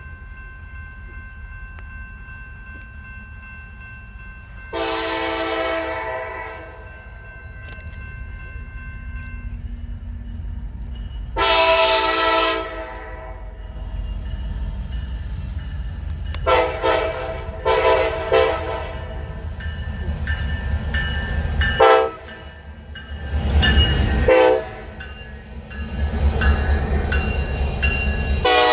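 Locomotive air horn sounded again and again for onlookers in a horn show: two longer blasts some six seconds apart, then a run of short, quick blasts. A steady low rumble from the train runs underneath.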